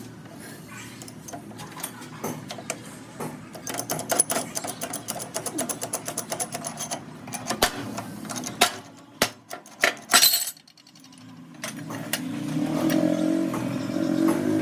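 Metal parts and tools clinking and knocking in a workshop, with a fast rattling run of ticks and several sharp knocks. A low machine hum starts up and builds near the end.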